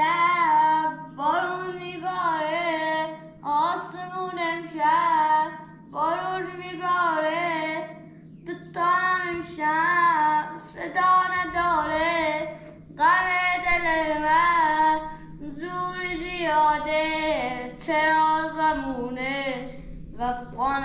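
A boy singing unaccompanied, a slow song in phrases of a second or two with wavering, ornamented notes and short breaths between them.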